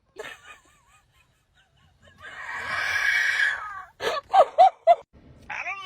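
Domestic fowl calling: a long harsh squawk, then three short, loud, sharp calls about a second later.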